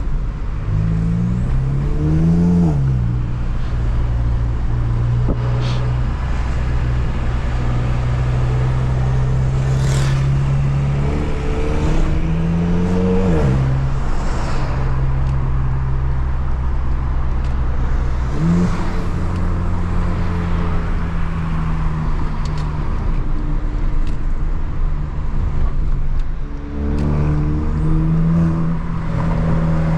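Stage 2-tuned Volkswagen Jetta 2.0 TSI turbocharged four-cylinder engine under acceleration: the engine note climbs in pitch and drops at each upshift, with steady cruising between. Hard pulls come at the start, about twelve seconds in, and again near the end.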